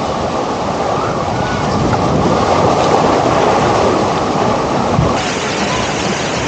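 Wave pool in action: a loud, steady rush of churning, splashing water, with faint shouts of children in it.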